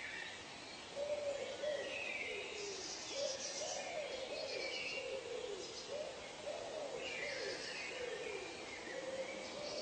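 Forest ambience of animal calls: a low call, each note bending up and down, repeats about twice a second from about a second in, over higher bird chirps and a buzzy insect trill.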